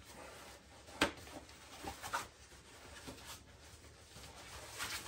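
Fabric camp-table top with aluminium struts inside being handled and folded: soft rustling and rubbing, with one sharp click about a second in.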